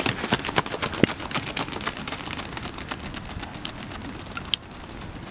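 Rapid footfalls of several athletes sprinting on a synthetic running track, a dense patter of quick slaps that grows fainter as the runners move away.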